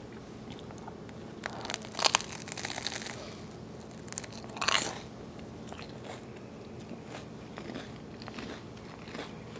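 Biting into and chewing a crusty homemade French baguette, the crisp crust crunching. The loudest crunching comes about two seconds in, with another short crunch near the middle, then quieter chewing.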